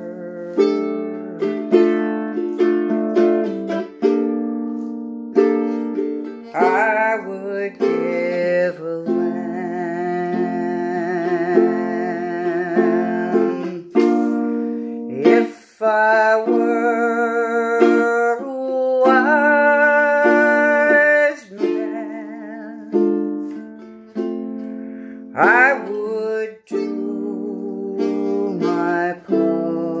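Ukulele played in slow chords, with a woman's voice singing the melody in places.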